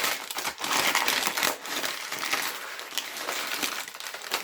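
Plant packaging being handled and pulled open, a dense crackling and crunching of crumpling wrapping.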